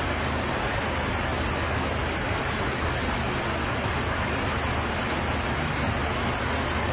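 Steady airliner cabin noise in flight: an even rush of engine and airflow noise over a low hum, unchanging throughout.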